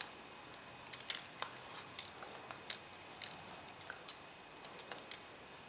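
Small sharp clicks and taps of a precision screwdriver and other small tools against the metal and glass parts of an iPhone 4 during disassembly, coming irregularly about a dozen times.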